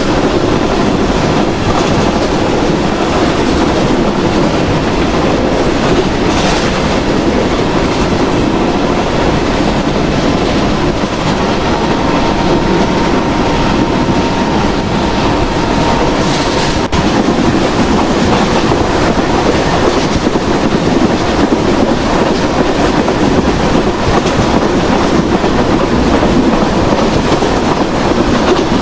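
Passenger train running at speed, its wheels clattering steadily over the rail joints in a continuous loud rumble.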